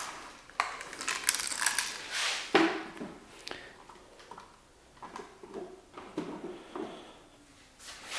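Scattered clicks, knocks and rustles of a cordless Ryobi 18V work light being handled and set in place.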